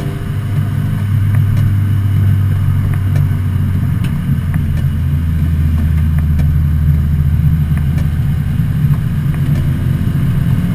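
1986 Volvo 245 race car's engine running hard at speed, heard from inside the cabin as a steady drone that gets louder about a second in and stays even.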